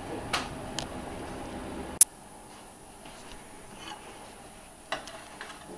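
Quiet kitchen sounds: a steady background hum with a few light clicks, which cuts off suddenly about two seconds in, then a few faint clinks of a metal spoon in a frying pan as vegetables are served.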